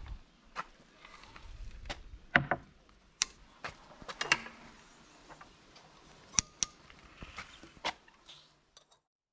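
Old wooden louvered window shutters being handled, giving irregular sharp knocks and clicks of wood and metal shutter hooks, several of them louder.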